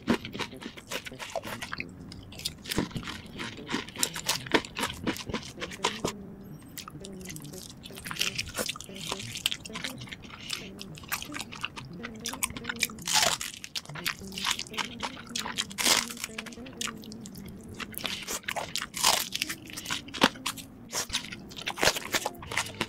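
A person biting and chewing crunchy food, with many short, sharp crunches in quick succession.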